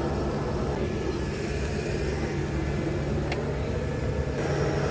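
Steady low hum and rumble of outdoor city background noise, with one faint click about three seconds in.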